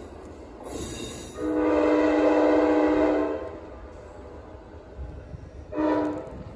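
Amtrak locomotive air horn sounding from the head of the departing train: one long blast of about two seconds, then a short blast near the end, a chord of several tones. A low rumble from the train runs under it.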